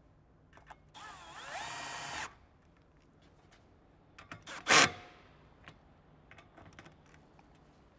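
Cordless drill-driver spinning up with a rising whine and running for just over a second, driving a snorkel's pillar screw. A few short blips and one sharp, loud burst follow near the middle, then light clicks.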